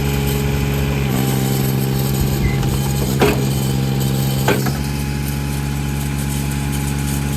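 Eastonmade 37D log splitter's diesel engine running steadily, its note shifting under load for a few seconds as the auto-cycle hydraulic ram goes out and back. Two sharp cracks come about three seconds in and again a second later.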